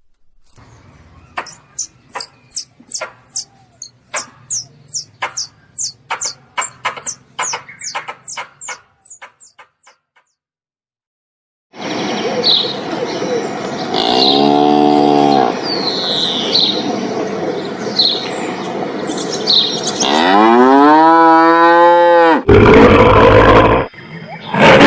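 Cattle mooing: a short low moo, then a long moo rising in pitch, with birds chirping in the background. Before them comes a run of about twenty quick, sharp clicks or chirps from an unidentified source, and a loud noisy burst follows near the end.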